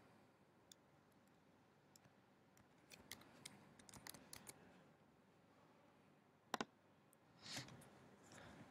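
Faint computer keyboard key clicks as a password is typed, scattered over the first four or five seconds, then a louder double click about six and a half seconds in.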